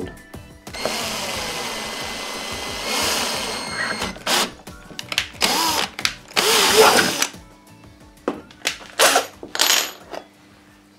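Power drill with a standard twist bit boring a pilot hole through a 110 mm PVC soil pipe. It runs steadily for about three seconds, then in a few shorter bursts, and stops well before the end, leaving a few short knocks.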